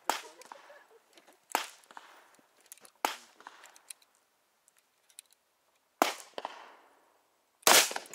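Gunshots on an outdoor range: single sharp shots about every second and a half at first, then a gap, then more shots, the loudest pair near the end, each trailing a short echo.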